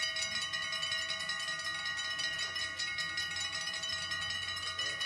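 Dutch level-crossing warning bells ringing in rapid, continuous strokes while the half-barriers come down, warning of an approaching train.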